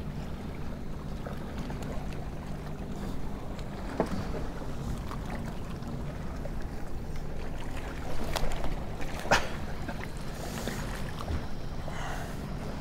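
Fishing boat ambience: a steady low hum with light water and wind noise, and a few sharp knocks on the boat about four, eight and nine seconds in.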